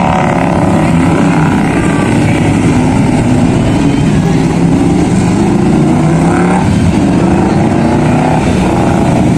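Motorcycles riding past one after another in a procession, several engines running together, their pitch rising and falling as each bike goes by.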